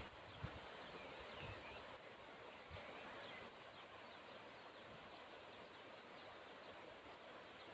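Faint outdoor ambience: a steady hiss with scattered faint bird chirps, and a soft low thump about half a second in.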